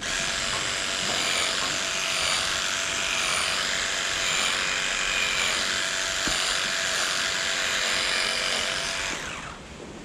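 Electric livestock clippers running with a steady buzz as they cut the hair of a cow's tail switch, stopping near the end.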